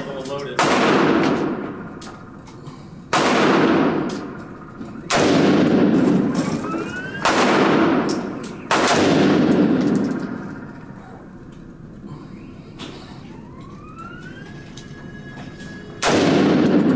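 Six shots from a Smith & Wesson M&P15 rifle in .223, each ringing out in the long echo of an indoor range. Five come in about eight seconds, a couple of seconds apart, then a sixth follows after a pause of about seven seconds.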